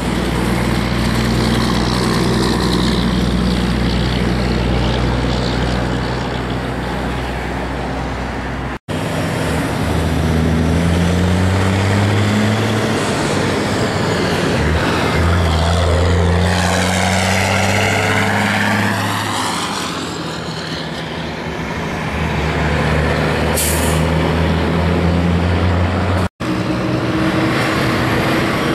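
Heavy diesel trucks driving past one after another, their engines running hard and low, with abrupt cuts between passes. In the middle pass the engine note climbs as the truck pulls away, with a sweeping tyre-and-drivetrain whine and a short sharp hiss of air near two-thirds of the way through.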